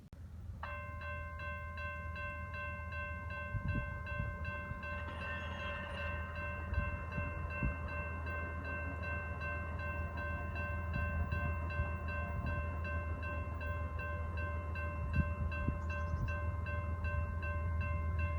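Locomotive chord horn on an approaching CSX freight train, sounding one long unbroken blast that starts about a second in. Under the horn, the low rumble of the train's diesel locomotives slowly grows louder.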